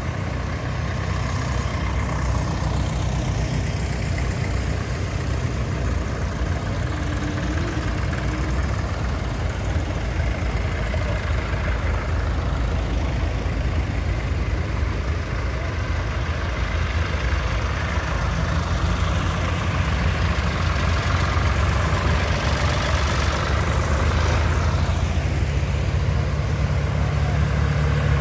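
Tractor engines running as a line of vintage tractors drives past one after another. The engine sound grows steadily louder over the last few seconds as a John Deere 1140's diesel engine comes close.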